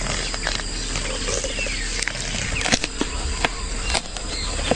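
Wildlife ambience: a dense, steady chorus of insects with scattered sharp clicks and a couple of falling calls.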